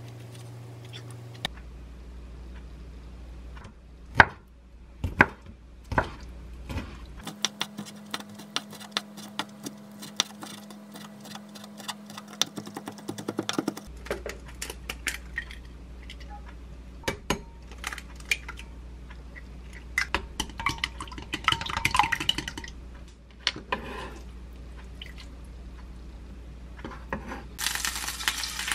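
Kitchen knife tapping and chopping raw shrimp on a wooden cutting board, first single knocks and then a quick run of chops. After that come light clinks of an egg being cracked into a glass bowl and beaten with chopsticks. In the last second there is a sizzle as the beaten egg hits a hot square egg-roll pan.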